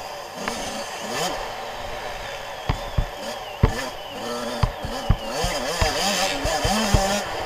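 Suzuki RM 85 two-stroke single-cylinder engine revving up and down again and again as the bike is ridden hard over a dirt motocross track. Several sharp knocks stand out over the engine.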